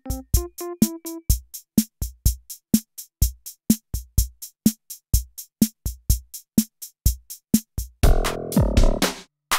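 Electronic music: a drum-machine beat with quick ticking hits and a kick drum about once a second, with short synth notes in the first second. Near the end a denser, louder passage comes in.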